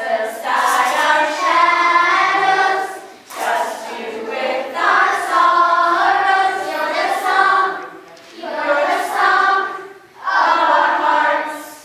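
A group of children and adults singing together in unison, in several long phrases with short pauses between them.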